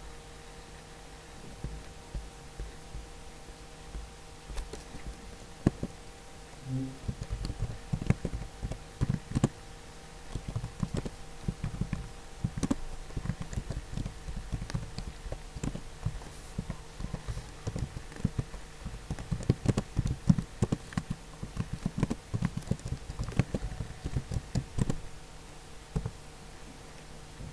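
Computer keyboard typing: irregular runs of keystroke clicks that start a few seconds in and stop a couple of seconds before the end, over a steady low electrical hum.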